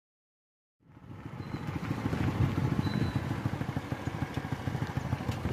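A motorcycle engine running with a rough, fast-pulsing low rumble. It fades in from silence about a second in and then holds steady.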